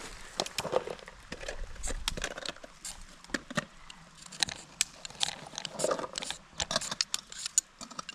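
A knife scraped along a ferrocerium fire steel in short, irregular strokes, a string of sharp scratches and clicks as someone tries to throw sparks onto tinder.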